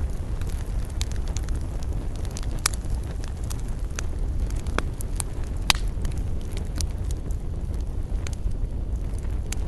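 Wood campfire burning, crackling with irregular sharp pops and snaps over a steady low rumble of flame.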